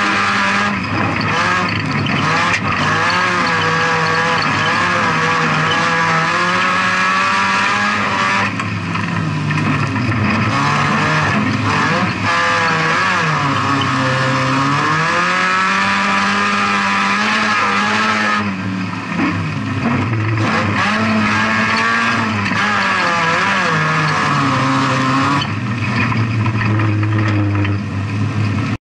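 VW Polo 16V stock car's engine heard from inside the cockpit under racing load, revving hard, its pitch climbing and falling over and over as the driver accelerates and lifts off for the corners.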